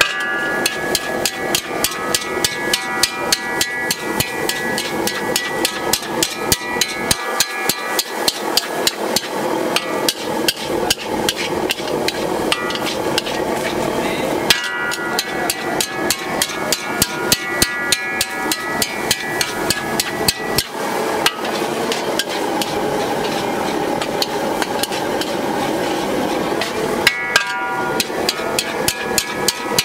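Long metal spatula striking and scraping a large wok over and over while stir-frying, a steady clanging of about two or three strikes a second.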